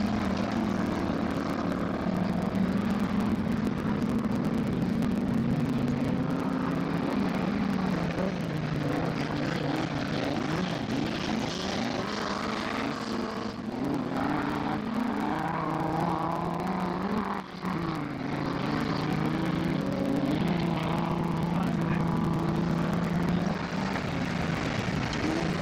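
Racing car engines on a dirt autocross course, running hard with the pitch stepping up and down as they accelerate and lift, with a brief drop about three-quarters of the way through.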